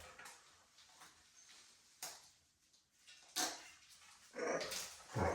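A few short, scattered macaw calls: a sharp one about two seconds in, another a little later, and a longer run of sounds near the end.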